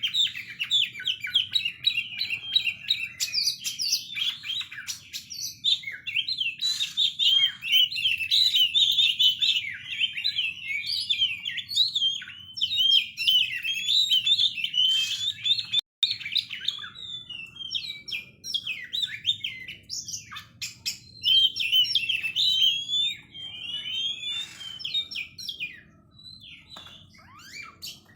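Oriental magpie-robin (kacer) singing without pause, a rapid and varied run of chirps, trills and whistles filled out with mimicked phrases, thinning out near the end.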